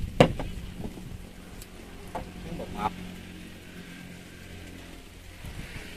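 A sharp knock near the start, then a few lighter knocks, from a cooking utensil on the pot. A low, steady engine hum runs underneath.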